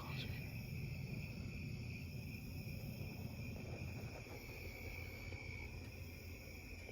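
Steady high-pitched insect chorus, a continuous trilling drone, over a faint low rumble.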